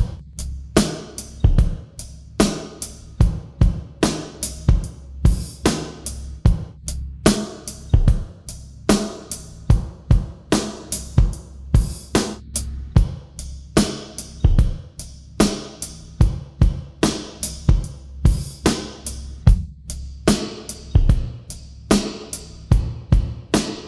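A drum kit playing a steady beat of kick, snare, hi-hat and cymbal, with bass notes held underneath.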